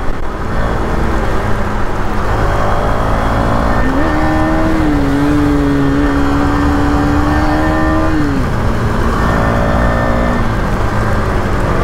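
Motorcycle engine running under heavy wind and road rush while riding. About four seconds in the engine note rises and holds steady for about four seconds, then drops away, as in accelerating to overtake.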